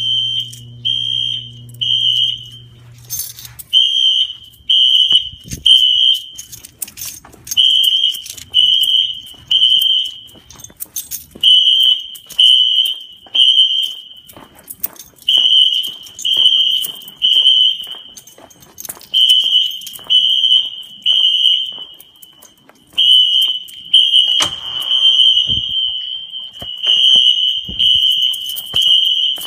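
Wheelock fire alarm horns sounding the temporal-three evacuation pattern: three loud, high-pitched beeps, a pause of about a second, repeated over and over, the signal of a fire alarm system in alarm during testing. Footsteps can be heard faintly between the beeps.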